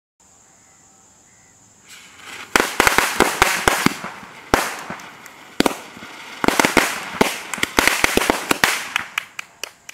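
A ring of small red firecrackers going off one after another in a rapid, irregular string of sharp bangs. A brief hiss rises just before the first bang, about two and a half seconds in, and the bangs thin out near the end.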